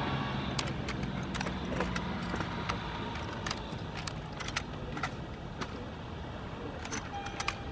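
Drill rifle being handled in an armed exhibition routine: sharp, irregular slaps and clicks of hands and sling striking the rifle, several a second. A low steady hum fades out over the first few seconds.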